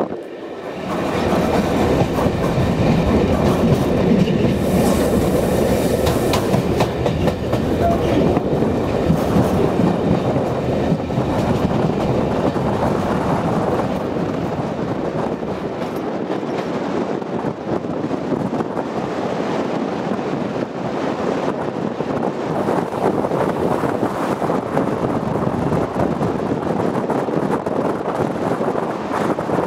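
Locomotive-hauled passenger train running over pointwork and rail joints: a steady rolling rumble of the coach with continual clickety-clack from the wheels.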